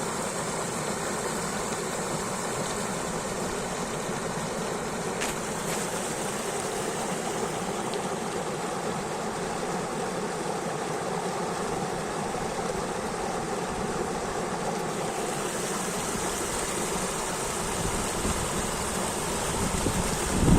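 Mountain river flowing: steady rushing water.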